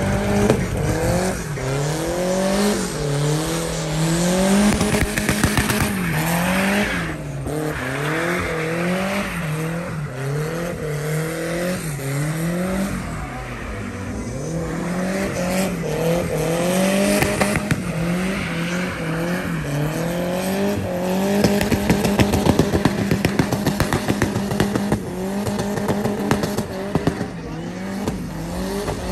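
Chevette with a Volkswagen AP 1.8 engine doing burnouts and donuts. The engine revs rise and fall about once a second over the hiss of spinning tyres. For the last several seconds it holds steady at high revs with a rapid crackle.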